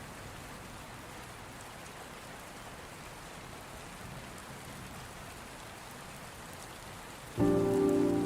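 Steady rain falling on surfaces outside a house. About seven seconds in, music suddenly starts with a loud chord of several held tones, louder than the rain.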